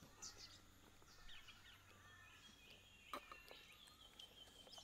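Near silence, with faint bird chirps in the background and a single soft click about three seconds in.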